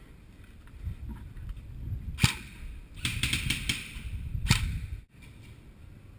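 Airsoft gun firing: a single sharp shot about two seconds in, a quick burst of about five shots a second later, then another single shot.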